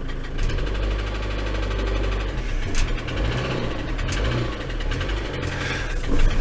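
Ford Transit van engine idling with a rapid, steady knocking tick whose cause is unknown to the owner. Two sharp clicks come over it a few seconds in.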